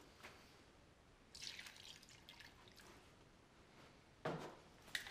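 Faint drips and splashes of water poured from a plastic jug into a bucket of all-purpose drywall joint compound, with a louder thump about four seconds in.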